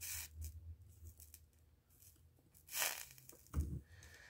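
Faint scratchy hissing from tinning a wire with a soldering iron and solder. There is a short burst at the start and a louder one about three seconds in, followed by a soft low thump.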